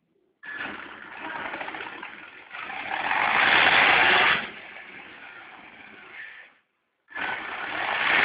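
HPI Savage Flux HP electric RC monster truck run up on the throttle: its brushless motor and drivetrain make a rough, grinding whirr, the strange noise it makes when accelerating. The sound swells to its loudest in the middle, cuts out briefly near the end and starts again.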